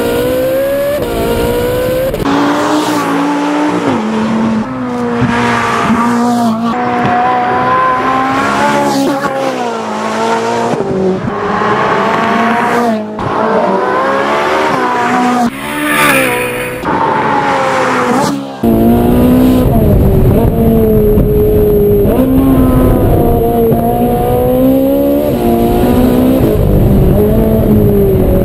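Ferrari 458 Spider's naturally aspirated 4.5-litre V8 driven hard, its revs climbing and dropping again and again through the gears with brief breaks at the shifts. About two-thirds of the way in, a heavier low rumble joins and the engine keeps pulling and easing off.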